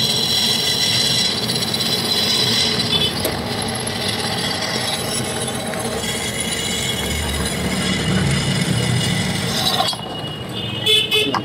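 Drill press running, its twist bit boring through a metal knife blank with a steady high whine of metal being cut. The sound drops off and changes about ten seconds in.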